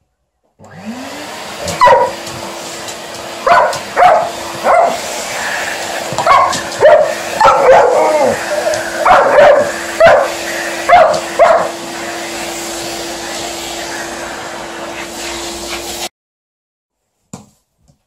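A vacuum cleaner switches on about half a second in, its motor rising in pitch as it spins up, then runs steadily and cuts off suddenly near the end. Over it an Alaskan Malamute barks and vocalises at the vacuum hose in a string of about a dozen short calls.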